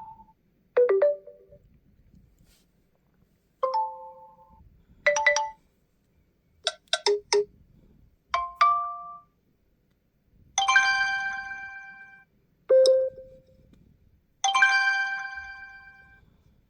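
OnePlus 11 stock ringtone and alert tones played one after another: a string of short electronic chimes with pauses between them. Some are a few quick notes, and the later ones are longer bell-like tones that ring out and fade.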